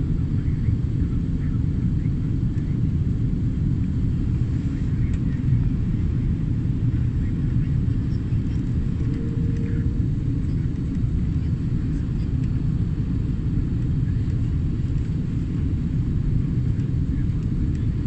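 Steady cabin noise of an airliner in flight: an even low rumble and rush of air that holds at one level throughout.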